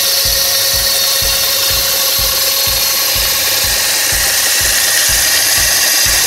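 Homemade battery-powered cutting machine running at speed: its 24 V electric motor belt-driving a small cutting disc, a loud, steady whine.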